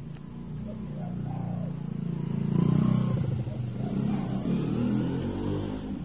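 A motor vehicle engine passing by, growing louder to a peak about halfway through and then fading a little.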